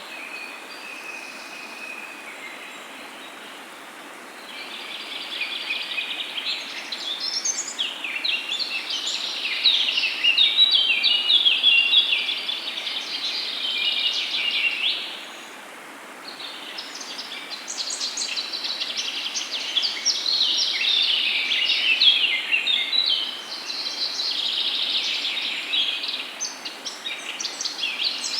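Songbirds singing and chirping in dense, overlapping bouts over a steady background hiss, with a brief lull about halfway through.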